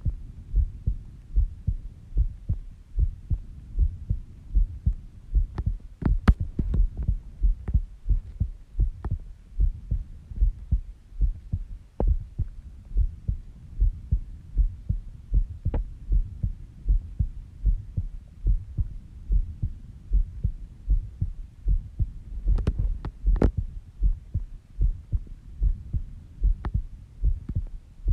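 A sleeping person's heartbeat at a slow resting rate of about 70 beats a minute, heard as a steady run of low, even thumps. A few brief sharp clicks sound over it, most clearly around six seconds in and twice near the end.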